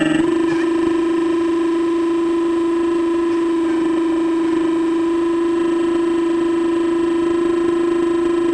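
Radio-controlled excavator's electric hydraulic pump running with a steady whine, picked up by a camera mounted on the machine.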